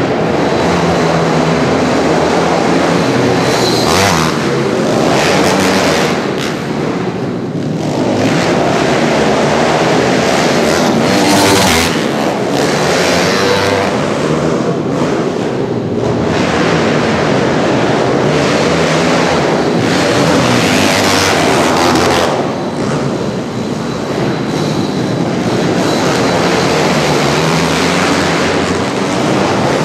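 Pit bike engines racing around a dirt track, revving up and down continuously as the riders accelerate and back off over the jumps.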